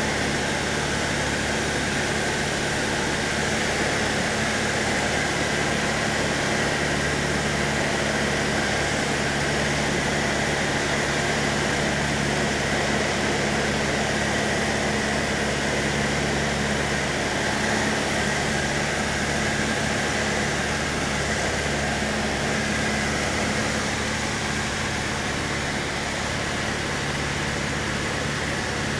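Cessna 152's four-cylinder Lycoming engine and propeller droning steadily in cruise flight, heard from inside the cabin over a constant rush of air noise. It grows slightly quieter near the end.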